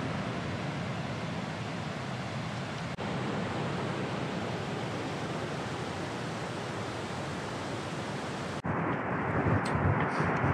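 An alpine mountain stream cascading over rocks: a steady rush of white water. About nine seconds in it cuts off abruptly to wind buffeting the microphone.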